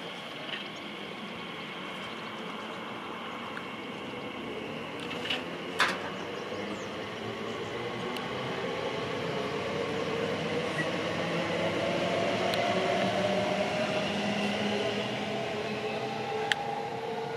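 Class 345 electric multiple unit pulling away. Its traction motors give a whine that rises steadily in pitch and grows louder as the train gathers speed, over the rumble of the wheels on the rails. Two sharp clicks come close together about five to six seconds in, and another near the end.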